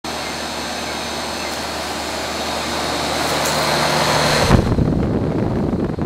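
Carrier 38CKB 2-ton central air-conditioner condensing unit running: a steady whoosh of the condenser fan over a faint compressor hum, gradually louder. About four and a half seconds in, the fan's discharge air buffets the microphone in a rough low rumble.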